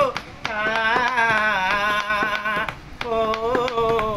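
A man singing unaccompanied, a wordless vocal passage of long, wavering held notes between verses. He beats time by tapping his fingers on the bench, about three taps a second.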